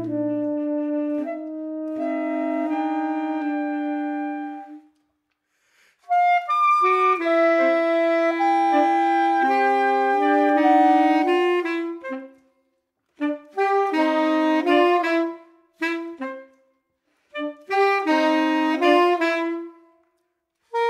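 Saxophone quartet (soprano, alto, tenor and baritone) playing contemporary chamber music. Held chords fade out about five seconds in, and after a brief silence come loud sustained chords, then short chord stabs separated by pauses.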